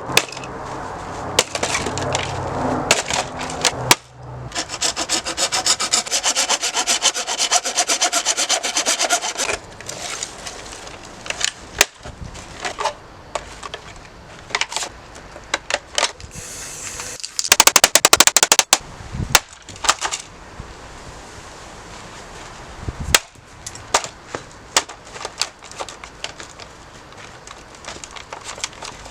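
A coffee machine being smashed and broken apart: scattered sharp knocks and cracks, a stretch of fast scraping about five seconds in, and a brief loud burst of rapid clattering a little past halfway.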